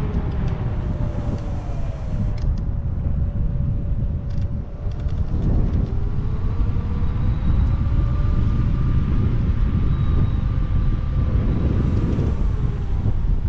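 Wind buffeting the microphone on a moving Kaabo Wolf King GT electric scooter, with the electric motor's whine rising and falling gently in pitch as the speed changes.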